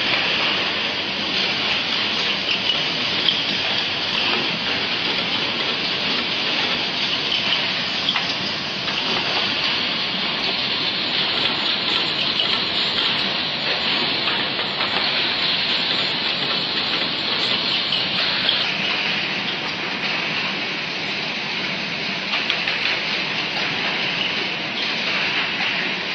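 Steady factory-floor noise from rigid-box making machines and conveyor lines running, heard as an even hiss with no distinct knocks or tones.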